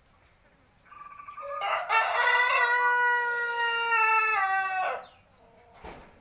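Young seven-month-old Indonesian native (ayam buras) rooster crowing once: a stuttering start, then a long drawn-out held note that falls slightly in pitch and cuts off sharply after about four seconds.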